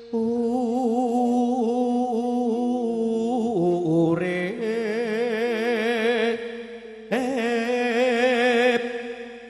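Campursari song: a singer draws out long, wavering notes over a steady held accompaniment. The voice breaks off briefly about seven seconds in and starts the next phrase.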